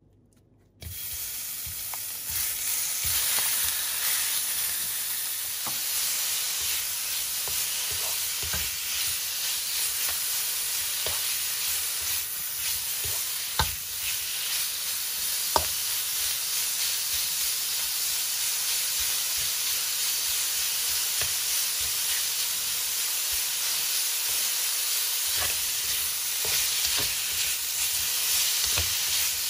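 Pork belly sizzling in hot oil in a wok, the sizzle starting suddenly about a second in as the meat goes into the pan and then running on steadily. A few sharp knocks cut through it now and then.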